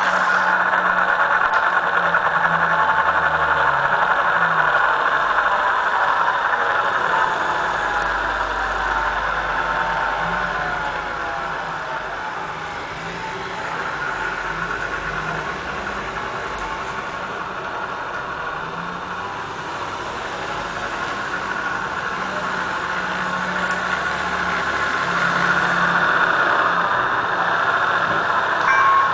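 Diesel engine sound-effect chip playing a simulated diesel engine running, its note gliding up and down in speed in the middle and getting louder again near the end.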